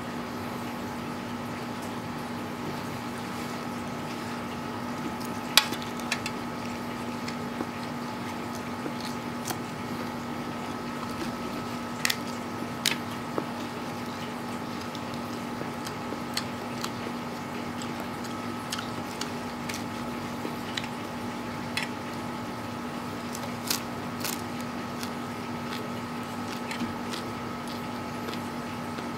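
Close eating sounds: instant noodles and raw papaya leaves being chewed, with scattered sharp clicks of a fork against a metal tray, over a steady background hum.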